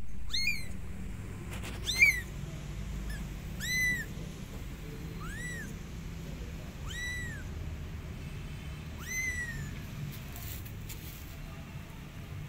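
A very young kitten meowing six times, one high-pitched cry about every one and a half to two seconds, each rising then falling in pitch. The second cry is the loudest. These are the kitten's calls for its mother.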